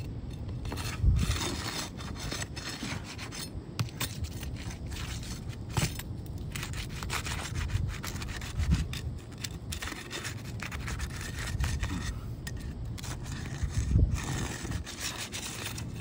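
Flat pry bar scraping and rubbing under Tamko Heritage asphalt shingles, breaking the sealant strips that bond the tabs to the course below, with a few sharper knocks about a second in, near the middle and near the end.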